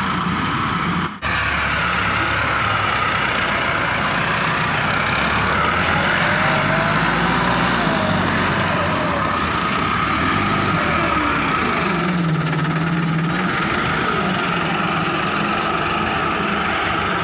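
Massey Ferguson 375 tractor's four-cylinder diesel engine running under load while its front-loader bucket digs into sand, the engine note rising and falling as the load changes. The sound drops out for an instant about a second in.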